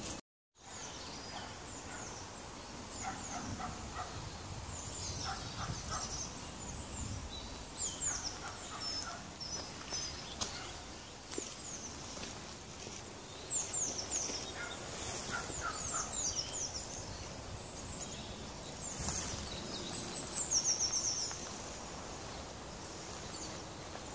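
Small songbirds singing and calling, with many short high chirps and downward sweeps and a quick trill of repeated notes near the end, over a low steady background noise.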